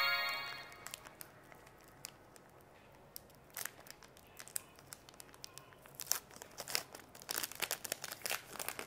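A small card-pack wrapper crinkling and tearing as it is opened by hand, in scattered crackles that get busier in the second half. A short chime sound effect fades out at the very start.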